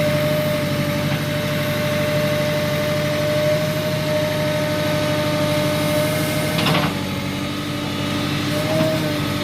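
Tractor loader backhoe's diesel engine running steadily, with a steady tone over it and a short clatter about seven seconds in.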